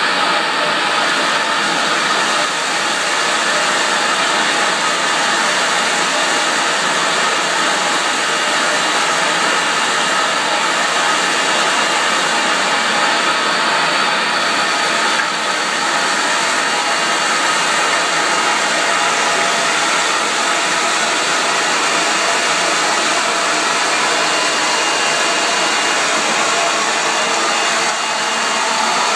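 Schellinger pellet mole suction head running in a wood pellet store: a steady, loud rushing hiss of suction air as pellets are drawn into its hose.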